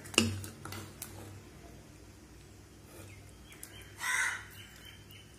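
Steel ladle knocks sharply once against the rim of a pressure cooker pot as chicken pieces are lifted from the gravy, followed by a few light clinks. About four seconds in, a crow caws once, briefly.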